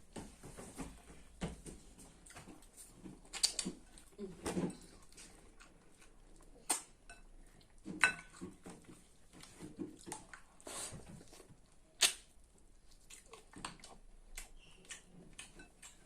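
Close-up eating sounds of fufu with okra soup: chewing and mouth smacks, with scattered sharp clicks and clinks.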